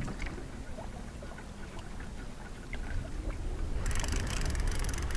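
Low rumble of wind and sea on the microphone, with scattered faint clicks; about four seconds in, a fishing reel starts a fast, even ticking that keeps going.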